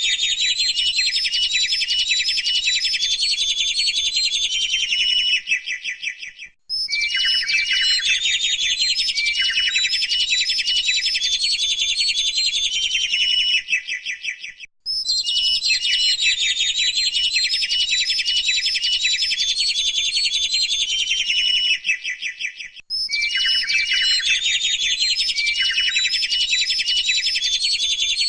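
Dense chorus of many small birds chirping and twittering all at once, high-pitched and continuous. It breaks off briefly about every eight seconds and starts again, like a repeated loop of the same recording.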